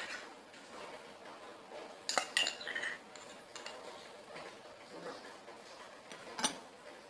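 Metal spoon clinking against glass bowls as spoonfuls of flour are scooped and tipped in: two quick sharp clinks about two seconds in, a lighter one a little later, and another sharp clink near the end.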